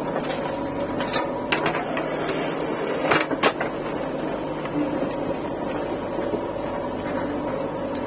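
JCB 3DX backhoe loader's diesel engine running steadily with a steady high tone over it, as the backhoe empties soil into a tractor trolley and swings back down to dig. A few sharp knocks break through, the loudest pair about three seconds in.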